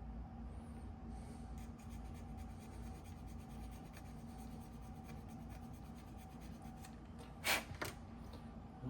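Faint scraping and light ticks from a small model-train signpost being worked and fitted by hand, with a short louder scrape about seven and a half seconds in, over a steady low hum.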